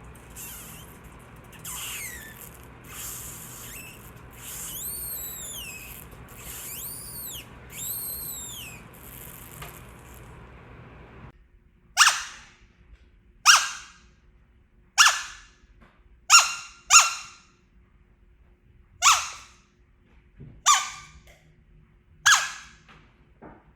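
High-pitched squeaks. For the first eleven seconds short chirping squeaks rise and fall in pitch over a low steady hiss that then cuts off. After that come sharp, separate squeaks that die away quickly, about one every second and a half.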